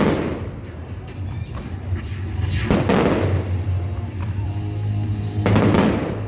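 Aerial fireworks shells bursting three times, about every three seconds, each blast dying away over a second or so, with music playing alongside.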